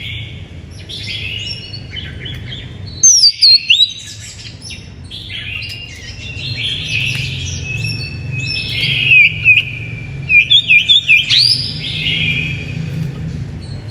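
Oriental magpie-robin (kacer) singing a rapid, varied song of whistles and chirps, with louder bursts of sharp rising notes about three seconds in and again from about nine to twelve seconds. A low steady hum runs underneath.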